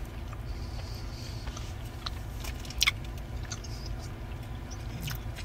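Chewing a soft gummy candy close to the microphone, with small wet clicks and one sharper click a little under three seconds in, over a steady low hum.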